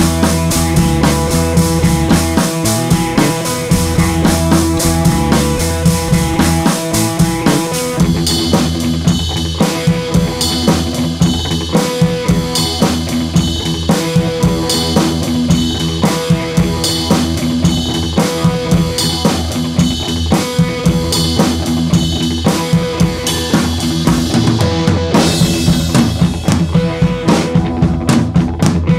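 Background music with a drum kit keeping a steady beat over sustained bass and melody notes; the drumming gets busier about eight seconds in.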